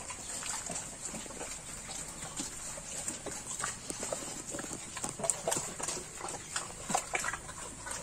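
Sow and piglets moving about a wet concrete pen, with irregular short clicks and taps of trotters and snouts on the floor. The taps come most densely a little past the middle.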